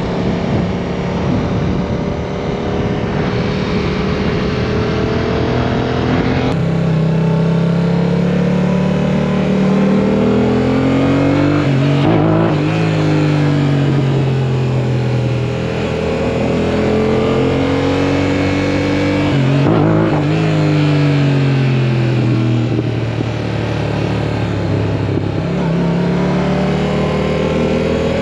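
2024 Yamaha R7's 689 cc parallel-twin engine ridden under load, its note climbing and falling with the throttle and breaking sharply about twelve and twenty seconds in.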